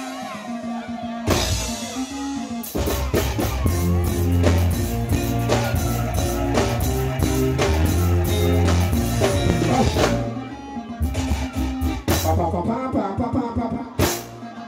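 Dancehall music playing loud over a sound system, with a heavy bass line and drum beat. The music breaks off briefly about ten seconds in.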